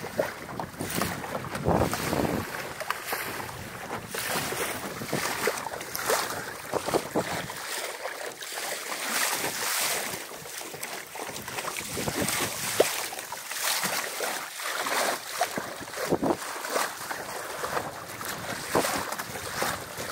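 Water splashing and lapping irregularly against the hull of a small sailing dinghy under way in choppy sea, with wind buffeting the microphone.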